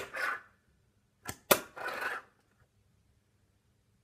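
Fingerboard clacking on a tabletop as ollies are popped and landed: a sharp clack near the start, then a light tap and a sharper clack about a second and a half in. Each clack is followed by a short rasp of the small wheels rolling on the table.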